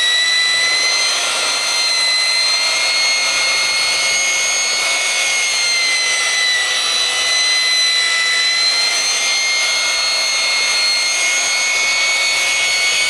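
DeWalt mud-mixing drill running steadily at full speed, driving a four-bladed Level 5 mixing paddle through fresh, unmixed joint compound in a five-gallon bucket. The drill gives a high, steady whine with a slight waver in pitch.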